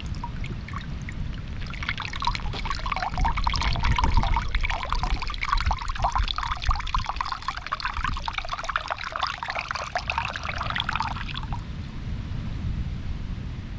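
Water from a freshly opened green coconut being tipped out and poured, a splashing trickle that starts about a second and a half in and stops a couple of seconds before the end.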